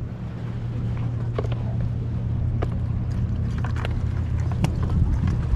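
Steady low rumble of wind and sea, with scattered light clicks and taps.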